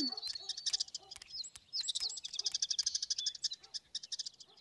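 Birdsong: small birds chirping and trilling rapidly in high notes, fading out near the end, a nature-sounds effect in a cartoon soundtrack.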